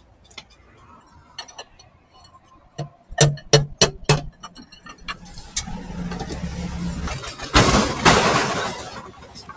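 Electric impact wrench working on the diesel engine's bolts: several short bursts about three seconds in, then a longer run from about five and a half seconds, loudest near eight seconds and tailing off near the end.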